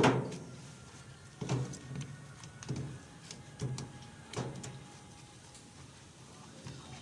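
A sharp knock at the start, then four softer knocks and clunks about a second apart, each with a brief ring.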